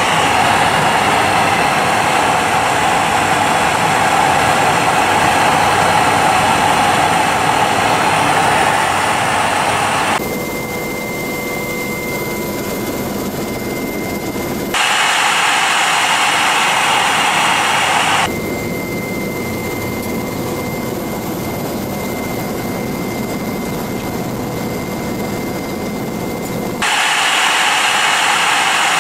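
Steady turbine and rotor noise heard inside an AgustaWestland EH-101 Merlin helicopter in flight. It switches abruptly several times between a louder rush and a quieter stretch that carries a steady high whine.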